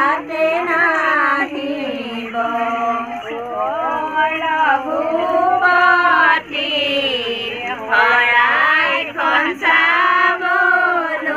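Women singing a biya naam, a traditional Assamese wedding song, several voices together on long, wavering held notes.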